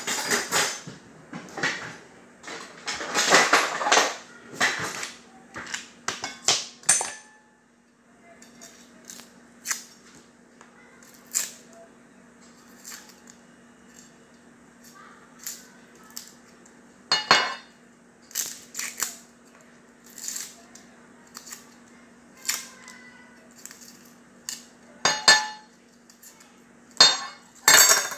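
Garlic cloves being separated and peeled, with a kitchen knife clicking and tapping on a cutting board. A dense run of crackling and rustling for about the first seven seconds, then scattered sharp clicks and taps.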